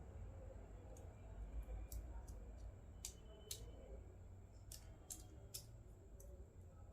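Faint, scattered light clicks and taps of small plastic toy pieces being handled, unpacked and set down, over a low background hum.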